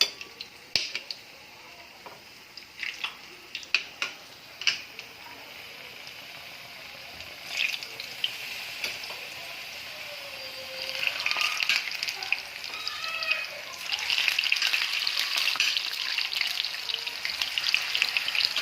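Sliced potatoes frying in hot cooking oil. A few sharp clicks against the pan come first, then a crackling, spattering sizzle that grows louder and busier from about halfway through.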